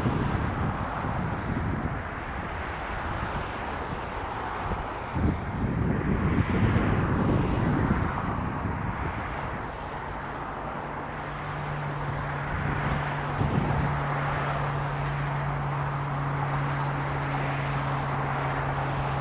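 Jet airliner engine noise at an airport, a broad steady rush with wind gusting on the microphone. A steady low hum comes in about halfway through.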